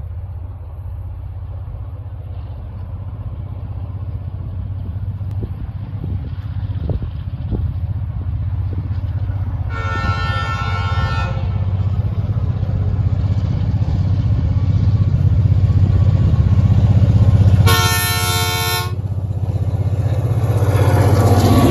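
Two TasRail diesel-electric locomotives, 2012 and TR10, working hard up a grade with a loaded log train, their deep engine drone growing louder as they approach. The locomotive horn sounds twice: a chord of about a second and a half some ten seconds in, and a shorter one of about a second near the end.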